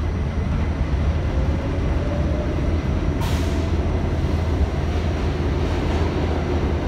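Interior ride noise of an R68A New York subway car moving through a station: a heavy, steady low rumble of wheels and running gear, with a faint motor whine rising in pitch over the first few seconds as the train gathers speed. A brief hiss comes about three seconds in.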